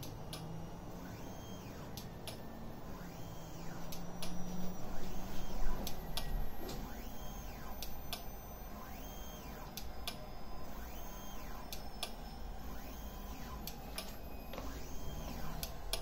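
Complex Scan D1000 motorised turntable running near its top rotation speed: a steady mechanical whir with a high whine that swells and fades about once every second and a half, plus scattered sharp ticks. There is a louder stretch of knocks around four to six seconds in.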